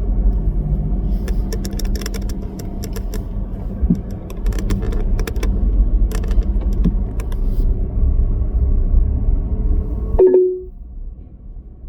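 Tow truck driving, a steady low engine and road rumble with a scatter of light rattling clicks, cutting off about ten seconds in.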